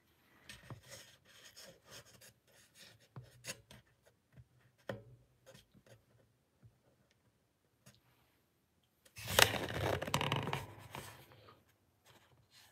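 Faint taps and clicks, then about nine seconds in a louder rubbing, scraping burst of handling noise as the recording phone is moved on its overhead camera arm.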